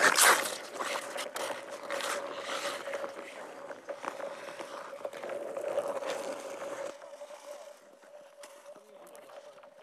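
Ice skate blades scraping and gliding on clear lake ice: a loud sharp scrape right at the start, then irregular strokes, going quieter about seven seconds in.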